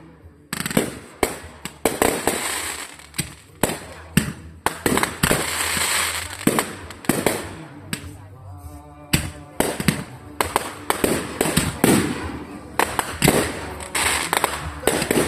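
Aerial fireworks going off in rapid, overlapping succession: sharp bangs several times a second over continuous crackling.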